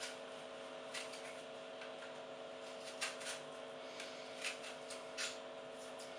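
A hand peeler scraping the skin off an apple in a handful of short strokes, over a steady low hum.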